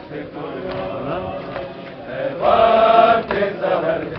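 Group of men chanting a mourning noha together, with one voice rising loud and held for about a second in the middle. Soft sharp strokes, about one a second, are hands beating on chests in matam.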